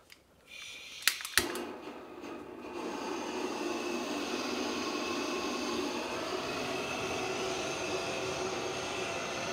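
Handheld butane gas torch on a screw-on canister: two sharp clicks of the igniter about a second in, then the flame's steady hiss as it burns, scorching the edge of a wooden shelf.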